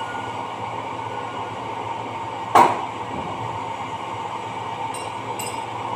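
One sharp metal knock a little before halfway, then two lighter clicks near the end, as the opened cast gearbox head of an Electrolux BMX e80 dough mixer is worked on by hand, over a steady background hum.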